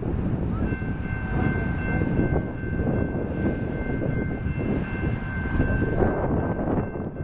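Rail maintenance machine's diesel engine running at idle, a low rumble with a steady high whine held over it from just after the start.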